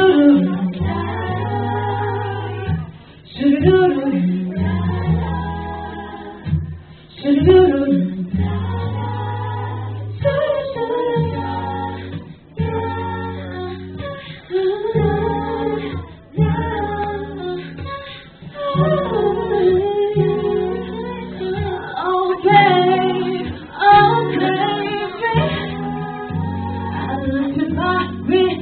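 Female pop vocal group singing a slow R&B-pop song live into microphones over an instrumental accompaniment.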